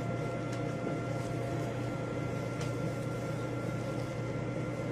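Steady machine hum in a small room, with faint high, even whining tones over it and a few faint soft ticks.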